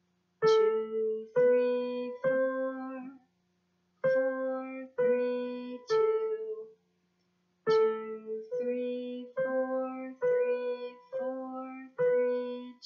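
Electronic keyboard playing a short right-hand melody of single notes, starting on A, stepping up and back down. It comes as three notes, a pause, three more notes, another pause, then seven notes in a row, each struck and left to die away.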